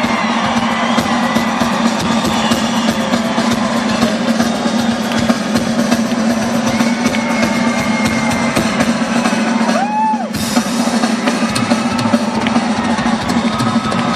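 Live rock drum kit played fast and hard, with rapid bass drum and snare hits and rolls, as in a drum solo.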